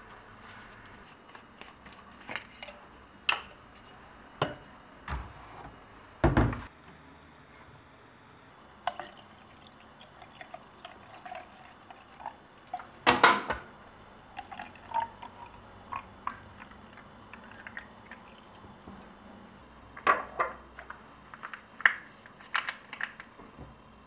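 Water poured from a large plastic water bottle into a small plastic spray bottle, with scattered knocks and clicks of plastic bottles and caps being handled and set down.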